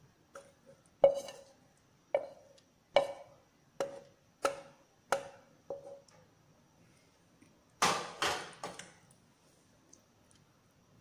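Metal spoon knocking against a metal cooking pot while dishing out cooked sprouts: about seven sharp taps roughly a second apart, each with a brief ring, then a short, louder clatter and scrape about eight seconds in.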